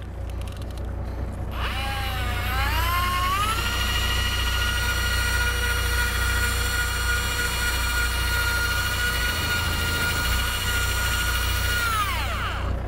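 Electric fishing reel motor winding in line: a whine that rises as the motor spins up, holds steady for about ten seconds, then falls away as it stops. A low steady hum runs underneath.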